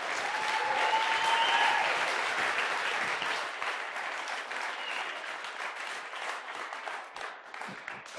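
Audience applauding, loudest in the first couple of seconds, then thinning out and dying away near the end.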